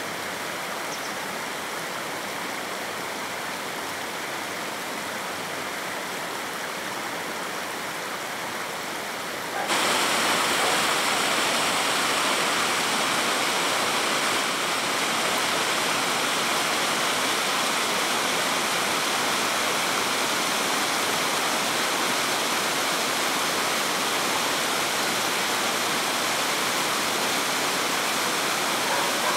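Mountain stream water cascading and splashing over rocks in small falls: a steady rushing noise that jumps abruptly louder about a third of the way through and stays there.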